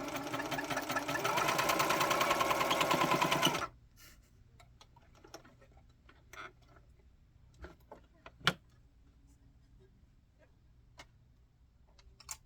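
White Power Lock serger running fast, a quick even stitching rhythm that cuts off suddenly after nearly four seconds. A few light clicks and one sharp knock follow as the machine is handled.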